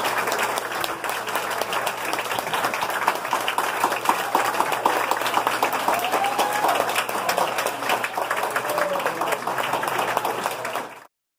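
Audience applauding, a dense patter of many hands clapping, with a voice calling out about halfway through. The applause cuts off abruptly near the end.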